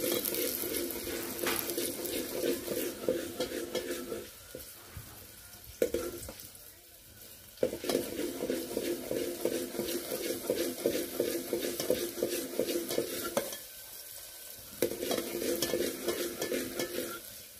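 Chopped onion sizzling as it fries in hot oil in a steel pot, with a metal spoon stirring and scraping against the pot. The stirring stops for a few seconds about four seconds in and briefly again around thirteen seconds, leaving the sizzle.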